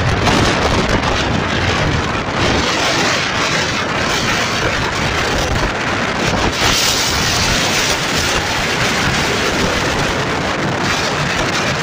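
Strong wind buffeting the microphone in a continuous rush of noise, with waves breaking on the shore beneath it.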